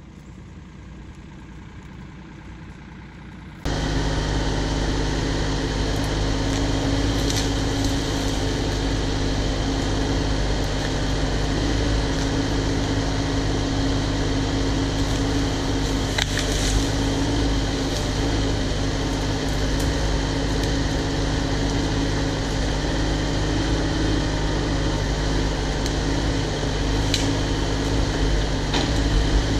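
Diesel engine of a Cat 304 mini excavator running steadily, faint at first, then much louder from a sudden step about four seconds in, with a few light clicks over the hum.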